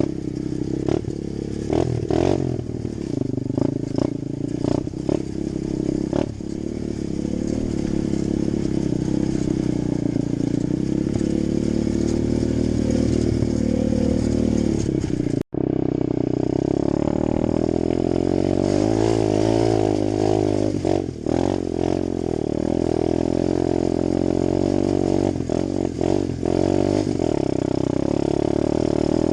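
Apollo 125cc four-stroke single-cylinder dirt bike engine running under way, its revs rising and falling as it is ridden. There are sharp knocks and rattles over the first few seconds, and the sound cuts out for an instant about halfway.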